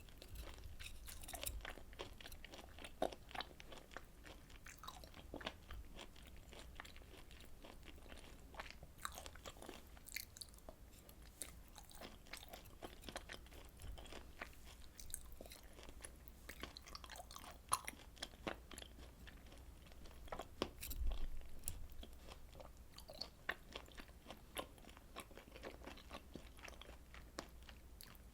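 Close-miked chewing of grilled food: a steady run of small crunches and mouth clicks, with a louder burst of crunching about three quarters of the way through.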